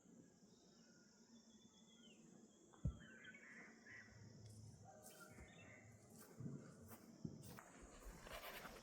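Near-silent outdoor ambience with one sharp knock about three seconds in, then faint scattered rustling and crunching, like footsteps, growing near the end.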